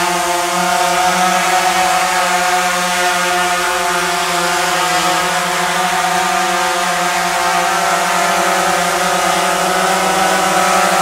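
DJI Phantom 3 quadcopter hovering and turning in place: its four propellers make a steady, buzzing whine of several tones, the pitch shifting slightly as the motors adjust.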